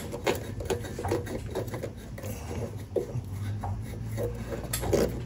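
Light, irregular clicks and scrapes of a hand tool working a polyurethane exhaust hanger onto the muffler's hanger rod, over a low steady hum.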